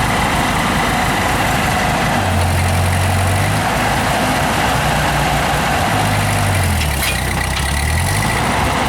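Old tractor engine running under load while pulling a tree stump; the engine note sags and picks up again a couple of times in the second half.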